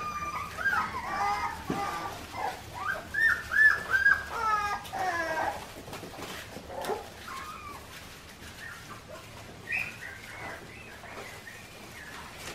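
Four-week-old Australian Shepherd puppies whining and yelping in short, high, sliding squeals. The squeals are thick for the first five seconds, then come only here and there, with a few more about ten seconds in.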